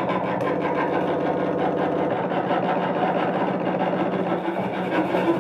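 Cello bowed into a dense, grinding drone of several held pitches with a rapid, even stutter running through it, in free improvisation.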